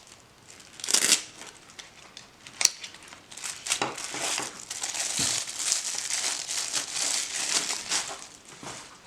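Black nylon knife sheath being handled: the fabric rustles and scratches, with a brief burst about a second in, a sharp click a little later, then a long stretch of rustling through most of the rest.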